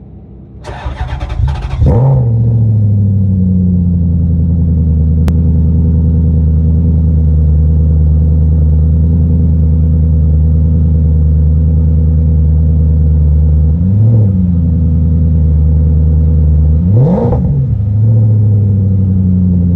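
V8 engine of a 2004 Maserati Coupe GT Cambiocorsa, which has an aftermarket exhaust. It starts up and flares to a higher pitch in about the first two seconds, then idles steadily. Near the end the throttle is blipped twice, the second rev bigger than the first.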